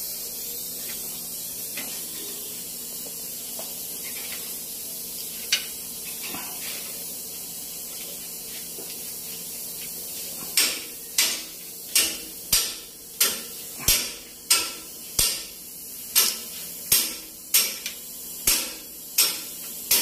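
Steady background hiss, then from about halfway a regular run of sharp metallic clicks, about one and a half a second, each ringing briefly, as a hand tool works at the front stabilizer bar bushing bracket under the car.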